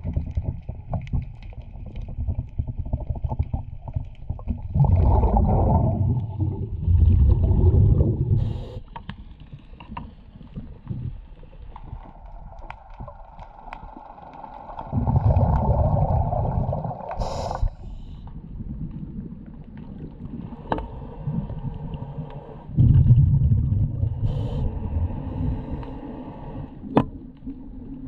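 Muffled underwater noise picked up through a camera housing below a sailboat's hull: three loud, low rumbling surges of water and bubble noise, roughly eight to ten seconds apart, over a steady murky background, with scattered sharp clicks.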